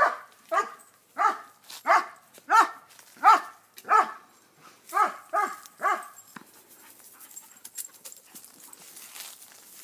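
German shepherd barking in play, about ten loud barks roughly two every second-and-a-half, stopping about six seconds in.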